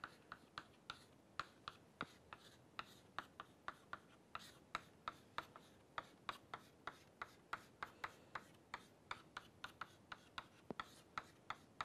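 Chalk writing on a chalkboard: a quick, faint run of taps and short scrapes as each stroke hits the board, about three or four a second.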